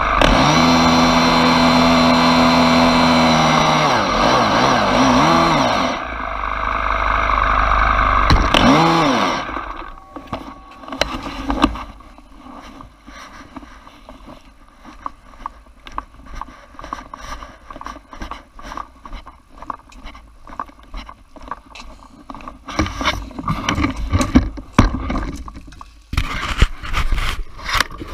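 Leaf blower engine running hard with air rushing through the tube. Its speed drops about four seconds in and builds again, then it revs up once more and dies away about ten seconds in. After that come close handling noises: clicks, knocks and rubbing against the blower tube.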